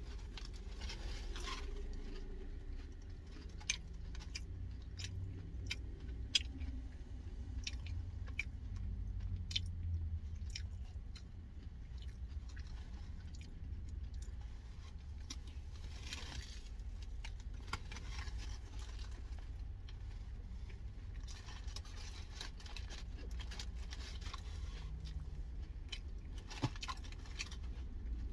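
A person chewing and crunching crunchy food with their mouth close to the microphone, many short sharp crunches scattered through the chewing. A steady low hum from the car cabin runs underneath.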